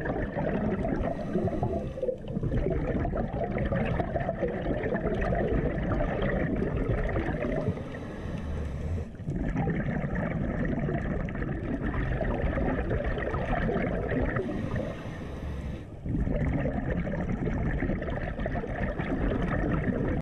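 Underwater bubble noise from a scuba diver's exhaled breath streaming past the camera housing, in long stretches broken by short quieter gaps about 8 and 15 seconds in.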